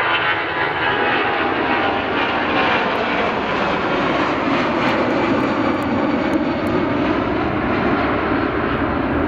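Jet airliner's engines at take-off thrust, a loud, steady rushing noise. A faint whine in the first few seconds fades as the sound grows deeper.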